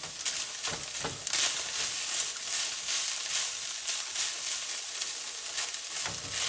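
Browned ground beef sizzling in a nonstick skillet as a spatula stirs it, a steady high sizzle broken by irregular scraping strokes of the spatula against the pan.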